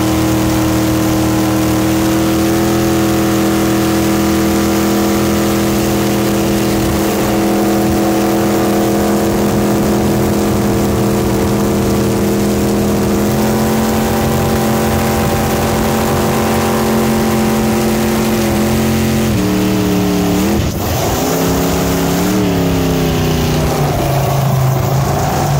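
Jet boat's engine running hard at a steady high speed under way, over a rush of wind and water. The pitch steps up about halfway through, then drops back, rises and falls briefly a couple of times, and ends lower.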